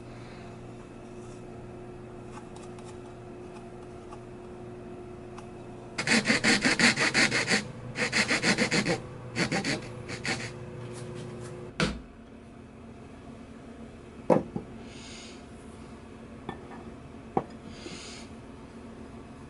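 A hand file worked across the edge of a small piece of wood in quick, short strokes, in two loud bursts followed by a few slower strokes. A knock follows, then later a sharper knock and a couple of light taps; before the filing there is only a steady low hum.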